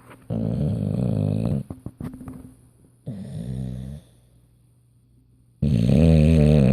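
English bulldog snoring in its sleep: three snores, one every two to three seconds, the middle one softer and the last the loudest.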